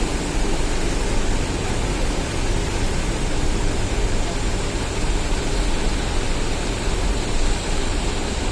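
Steady, loud rumbling noise with no distinct events, heaviest in the low end, with a faint high whine running through it.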